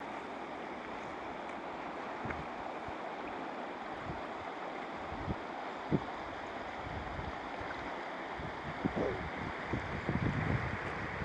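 A river running steadily over shallow, rippling water. Occasional low bumps of wind or handling hit the microphone, more often near the end.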